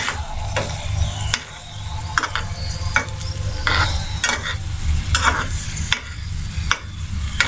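Paratha shallow-frying in a little oil in an aluminium frying pan, sizzling steadily, while a metal spatula presses it and scrapes it around the pan, with a short scrape or tap about once a second.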